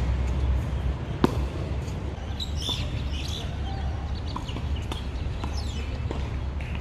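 A tennis racket strikes a ball with one sharp pop about a second in, followed later by a few fainter knocks of the ball. Birds chirp in the middle and again near the end, over a steady low rumble.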